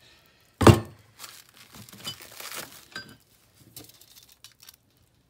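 A heavy solid brass bar set down on a workbench with one loud thunk about half a second in, followed by the crinkling of plastic wrapping film and a few light clinks of brass stock being handled.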